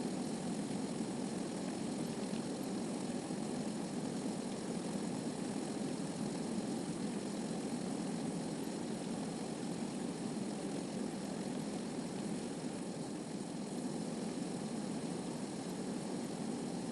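Steady rushing water sound, an even low rush that does not change.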